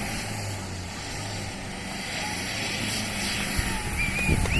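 Off-road 4x4 vehicle's engine running at steady revs, fading about a second and a half in. Near the end a louder low rumble builds, with a brief high wavering call.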